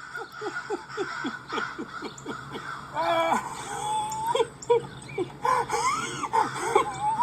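Cartoon-style novelty sound effects: a run of quick blips that each fall in pitch, about three a second, for the first three seconds, then sliding tones that rise and fall.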